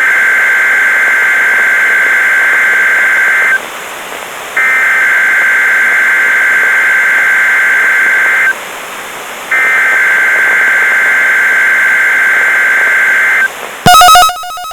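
Emergency Alert System SAME header: three bursts of digital data tones, each about four seconds long, with about a second's pause between them, marking the start of an alert broadcast. A different loud steady alert tone starts near the end.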